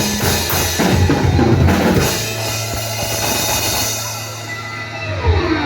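Live rock band playing: the drum kit pounds out a run of hits, then about two seconds in a held chord rings on with the cymbals washing out.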